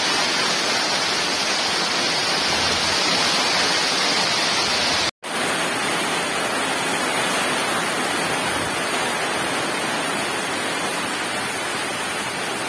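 Heavy typhoon rain pouring down steadily on trees and corrugated metal roofs, a dense continuous hiss. The sound breaks off for an instant about five seconds in, then the same downpour carries on.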